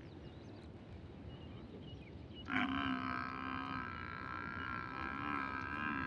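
A bovine lowing once: a single long, steady call of about three and a half seconds, starting about two and a half seconds in.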